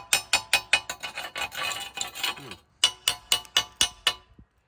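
Slag being chipped off fresh stick welds: quick, sharp metallic taps about five a second, with a stretch of scraping in the middle. The taps stop about four seconds in.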